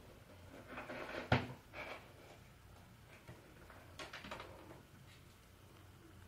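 Knocks and rattling of a wire pet cage as cats move inside and around it: one sharp knock a little over a second in is the loudest, with lighter scuffling around it and another short run of rattling about four seconds in.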